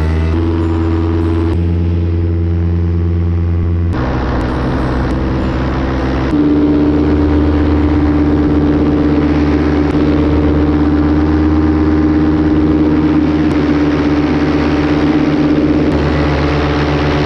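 Fly Products Atom 80 paramotor's two-stroke engine running at a steady throttle, its pitch stepping abruptly to a new steady note a few times.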